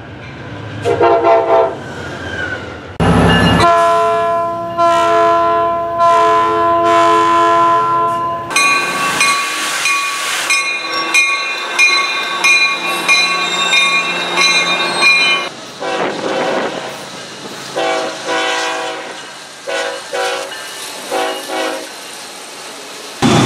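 Several diesel locomotive horns in cut-together clips, each a multi-note chord. A few short blasts come first, then long blasts, then one long higher-pitched horn, then a run of short blasts. The horn changes abruptly every few seconds, with train noise under it.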